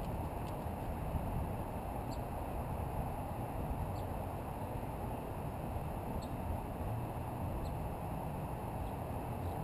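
Steady outdoor background noise, mostly low, with four faint, very short high chirps spread through it.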